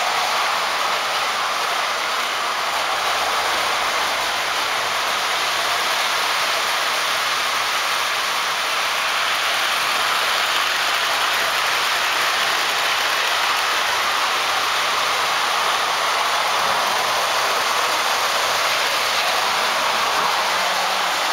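O-gauge electric toy trains running on their three-rail track: a steady running noise of metal wheels and motors.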